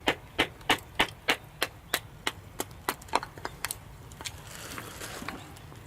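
Batoning: a wooden baton striking the spine of a Mora knife driven into a piece of firewood to split it. A steady run of sharp knocks, about three a second, quickening and getting lighter before stopping a little under four seconds in.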